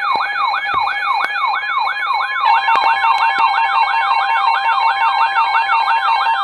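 Layered electronic siren tones starting abruptly: a rapid falling sweep repeating about three times a second over steady tones. About two and a half seconds in, an alternating two-pitch warble joins it.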